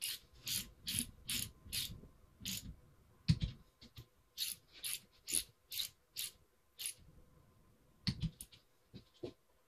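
Ratchet wrench running down the cylinder head bolts on a Mercury 500 outboard powerhead: quick back-and-forth strokes of the pawl clicking, about two or three a second, in two runs. A dull knock comes about three seconds in, and a few more clicks near the end.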